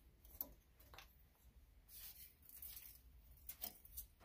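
A few faint clicks and light knocks of hands handling clamped steel blanks and locking clamps at a drill press, over a low room hum.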